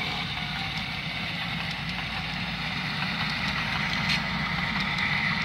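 Sound-equipped HO scale model diesel locomotive running, its speaker giving a steady diesel engine drone, with a few faint clicks.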